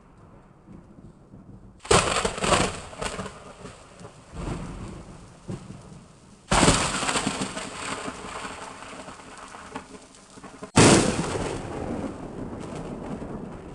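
Three thunderclaps, each breaking suddenly with a sharp crack and dying away into rumble over several seconds; they come about four seconds apart, near the start, the middle and the end.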